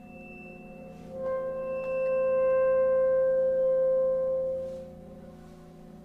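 Contemporary chamber music for voice, bassoon, accordion and percussion: a single held note swells in about a second in, sustains, and fades out near the end, over a quiet steady low drone.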